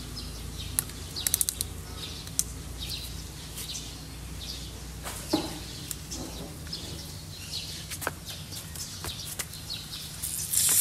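Birds chirping over a low steady hum, with a few light handling clicks. Near the end comes a loud fizzing hiss that rises quickly: Coca-Cola foaming up out of the bottle as Mentos drop in.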